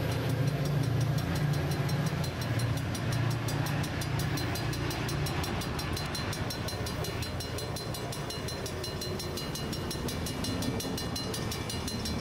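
Coaster F40PH-2C diesel locomotive under power as its train pulls away. Its low engine drone is loud for the first few seconds, then fades as the train recedes. A rapid, evenly spaced high ticking runs alongside.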